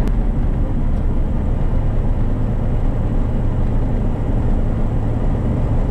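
Diamond DA40's piston engine and propeller turning over at low taxi power, heard as a steady drone inside the cockpit. A brief click comes right at the start.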